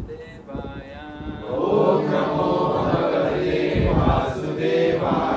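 Devotional chanting by a group of voices, growing fuller and louder about one and a half seconds in.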